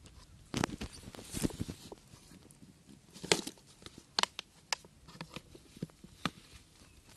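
A plastic bait jar being handled and shaken, with bait tipped out into a hand. Irregular knocks and taps of the jar mix with soft scraping and rustling.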